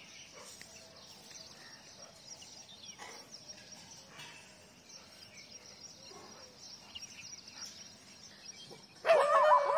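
Faint outdoor background with a few scattered chirps, then about nine seconds in dogs suddenly break into loud howling and barking.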